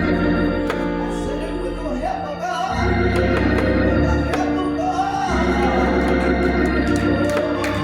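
Hammond-style church organ playing sustained gospel hymn chords over a deep bass, the chords shifting every couple of seconds, with a few sharp clicks on top.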